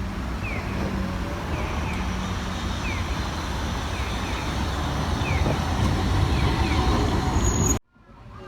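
Vehicle engine running with a steady low rumble, short high falling chirps repeating over it; the sound cuts off abruptly near the end.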